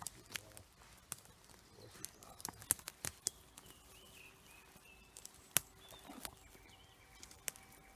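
Footsteps on a dry forest floor: irregular sharp snaps and crunches of twigs and dead branches underfoot, loudest about two and a half and five and a half seconds in.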